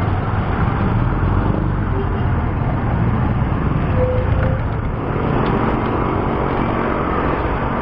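Steady road traffic noise with a motor vehicle engine running close by.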